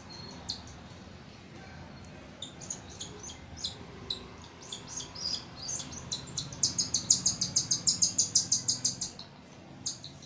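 Baby cockatiel chick chirping in short high calls during hand-feeding. About two-thirds of the way in, the calls become a fast, even run of about six chirps a second, the chick's food-begging call.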